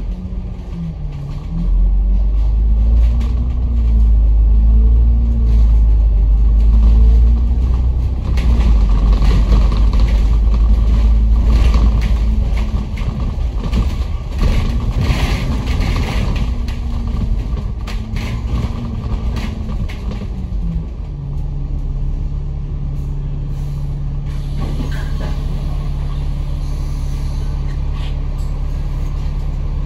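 Bus engine and transmission heard from inside the cabin, pulling away. The pitch climbs and drops back several times as it works through the gears, then settles into a steady lower tone about two-thirds of the way in, under a constant low rumble.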